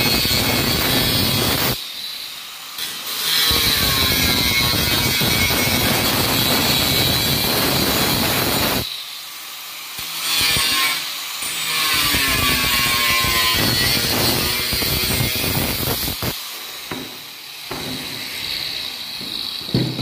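Angle grinder with a cutting disc cutting through perforated steel cable tray, a loud grinding with a steady high whine. The cutting eases off briefly about 2, 9 and 16 seconds in, then resumes.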